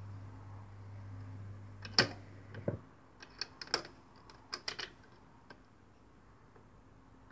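Automatic record changer at the end of a record: a loud click, then a run of lighter mechanical clicks as the tonearm lifts off the disc and swings back to its rest. A low steady hum cuts off about two and a half seconds in as the player shuts off.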